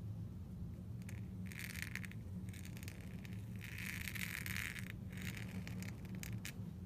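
Pointed dip-pen nib scratching across paper in a series of strokes while a Copperplate capital is written, the longest stroke about halfway through, with a few short scratches near the end. A steady low hum runs underneath.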